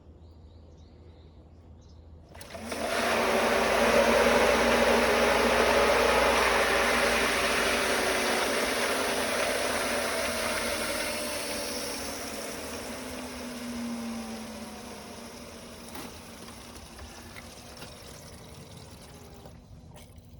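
Shallow-well water pump running while it draws air into the water, a rushing, muddy-sounding noise that starts suddenly about two seconds in and slowly fades away. The air is being sucked in through a cracked suction pipe from the well.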